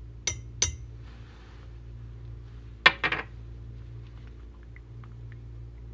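Small glass perfume bottles clinking against glass as they are held and handled over the neck of a large glass bottle. There are two sharp ringing clinks near the start and a louder cluster of clinks about three seconds in, all over a low steady hum.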